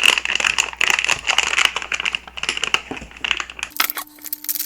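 Plastic packaging crackling and crinkling in rapid clicks as it is handled and opened to get a single-board computer out of its sealed plastic box.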